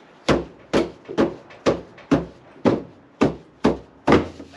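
Nine sharp knocks, evenly spaced at about two a second, the last the loudest, as a tool is struck against the duct tube on the side-by-side's CVT belt cover to work it loose.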